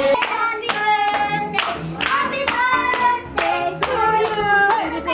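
Voices singing a song together with hands clapping along in time, about two claps a second.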